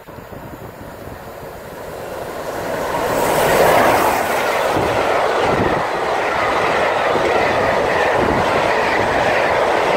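Peppercorn A1 Pacific steam locomotive 60163 'Tornado', a three-cylinder engine, approaching and passing at speed. The sound swells over the first three seconds or so and is loudest as the engine goes by, about four seconds in. After that comes the steady running noise and clickety-clack of its Mk1 coaches' wheels on the rails.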